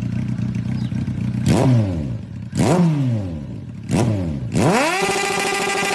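Suzuki Raider 150 motorcycle engine running, blipped three times about a second apart, the revs falling back after each blip. Near the end a rising sound levels off into a steady tone.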